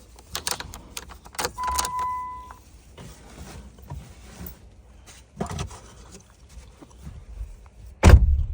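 Keys and metal tools clicking and rattling, with a single short electronic beep about one and a half seconds in and a loud thump near the end.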